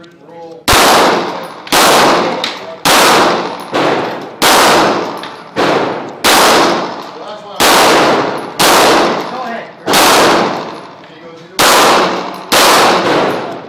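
Semi-automatic pistol fired about a dozen times, roughly one shot a second with a slightly longer pause near the end, each shot ringing on in the echo of an indoor concrete range.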